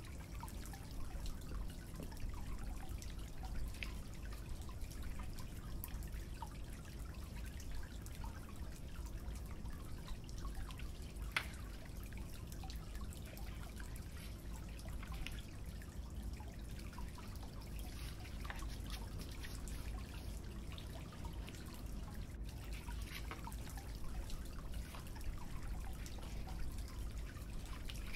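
Faint, irregular little clicks and taps of paper and a glue brush being handled, over a steady low hum of room noise.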